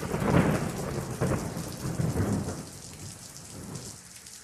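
Thunderstorm: steady rain with rolling rumbles of thunder, which die away in the last second or so.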